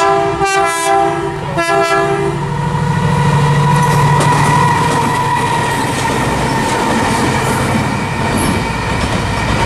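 Colas Rail Class 70 diesel locomotives, with GE PowerHaul V16 engines, passing close by. The horn sounds in a few short blasts over the first two seconds or so, then the loud engine rumble takes over as they go past, with wheels clattering on the rails.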